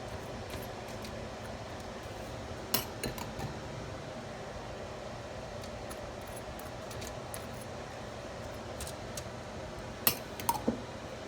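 Kitchen utensils clinking against dishes a few times over a steady hum. There are a couple of knocks about three seconds in and a quick cluster near the end, one ringing briefly and falling in pitch.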